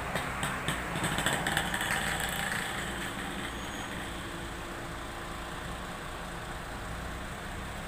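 A steady low machine hum, with a few sharp clicks in the first two seconds.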